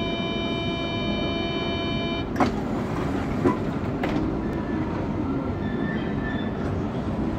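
Door-closing warning tone of a double-deck RER D train, sounding steadily for about two seconds. It cuts off as the sliding doors shut with a knock, and a second knock follows about a second later. The parked train's steady hum runs underneath.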